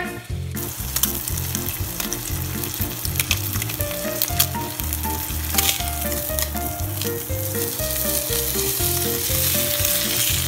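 Thick slab of smoked bacon sizzling in a hot frying pan, a dense hiss with scattered crackling pops of spitting fat. It starts suddenly about half a second in and grows a little louder toward the end.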